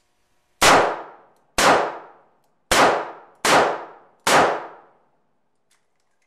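Five shots from a Charter Arms Undercover .38 Special snub-nose revolver, fired about one a second, each ringing out for about half a second. The cylinder is emptied so the spent cases can be ejected in a speed-reload test.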